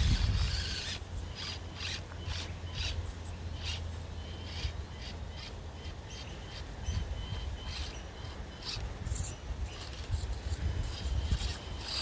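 Axial SCX24 Deadbolt micro RC crawler climbing over rock: its small electric motor and gears running under a low rumble, with the tyres and chassis knocking and scraping on the stone in many irregular short clicks.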